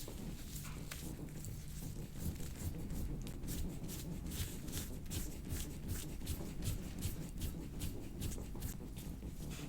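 Hands rubbing and stroking over skin and cloth in quick, irregular soft strokes, several a second, over a low background rumble.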